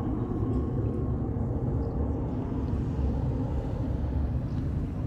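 Light propeller aircraft flying overhead, a steady low drone.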